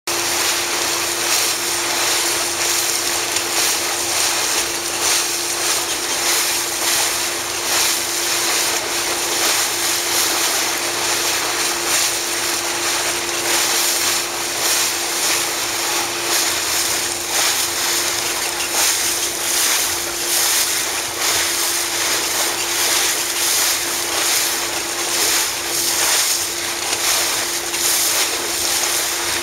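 Motorboat running at steady cruising speed: a constant engine drone under the rush of water spraying along the hull, with wind.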